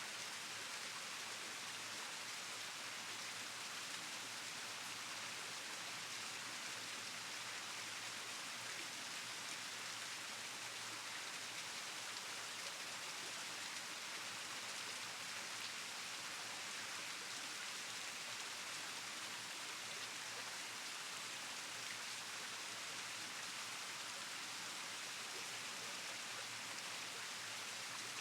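Steady rain falling, an even hiss with scattered drop ticks, with no change throughout.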